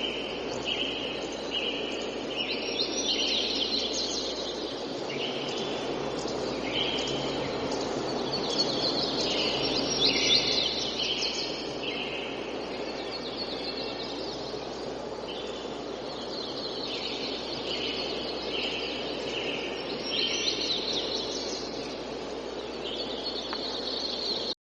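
Tropical forest dawn ambience: birds chirping and calling over a steady background rush of wind, trees and distant activity, with one short call repeating regularly about every second.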